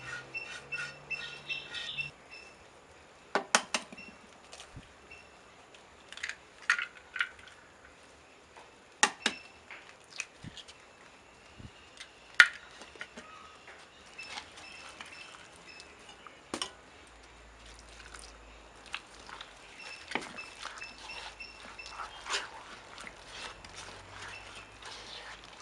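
Hands working food in earthenware bowls: scattered sharp taps and knocks against the clay, the loudest about twelve seconds in as eggs are cracked over the bowl, then a soft, wet rubbing as grated coconut is kneaded by hand near the end. Birds chirp in a quick repeated pattern for the first two seconds.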